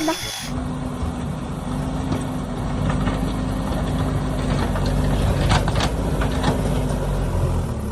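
Heavy vehicle engine idling steadily with a low hum, for a JCB backhoe, with a few light clicks a little past the middle.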